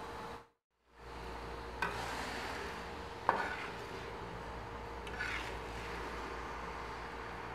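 Sugar syrup bubbling and sizzling in a metal wok while a metal spatula stirs it, knocking and scraping against the pan three times, the middle knock loudest. The sound cuts out briefly near the start.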